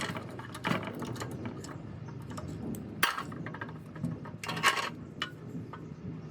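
Several separate metal knocks and clinks of hand tools striking metal parts, the loudest about three seconds in and another group about a second and a half later, over a low steady hum.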